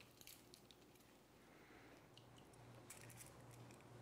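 Faint wet squishes and a few light clicks as yogurt-marinated chicken pieces are forked out of a tub and laid on a foil-lined baking sheet, over a steady low hum.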